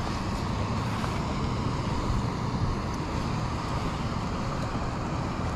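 Wind buffeting the microphone: a steady rushing noise with an unsettled low rumble underneath.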